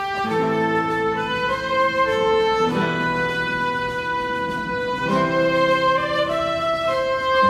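Background music: a melody on violin or bowed strings, with held notes over a sustained accompaniment.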